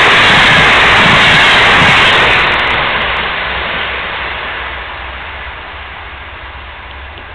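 NS passenger train running past at close range: a loud steady rushing rumble that begins to fade about two seconds in and dies away as the train moves off.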